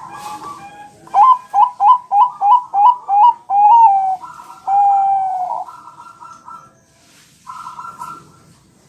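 Bangkok-strain zebra dove (perkutut) cooing: a quick run of about eight short hooked coos, then a longer held coo that falls at its end, followed by softer fluttering coos near the end.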